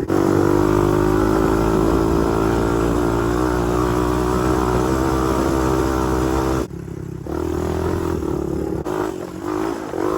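Honda TRX250X ATV's single-cylinder four-stroke engine running at steady throttle, then dropping off sharply about two-thirds of the way through to a quieter, uneven running sound.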